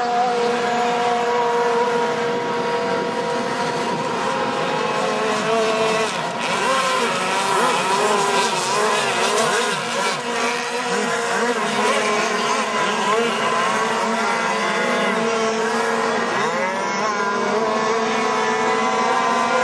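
Several radio-controlled offshore racing boats' engines whining together at high revs, their pitches rising and falling as the boats pass and turn.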